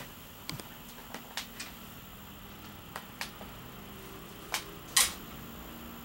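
Handling noise from a handheld camera being moved around a small room: scattered clicks and knocks, the loudest about five seconds in, over a faint steady hum.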